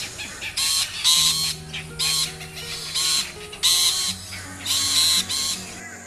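Oriental dollarbird giving about eight harsh, rasping calls, each a fraction of a second long, spaced unevenly. Background music of sustained low notes runs underneath.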